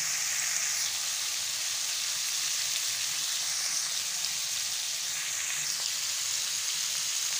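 Diced raw papaya frying in hot oil in a kadhai, sizzling with a steady hiss.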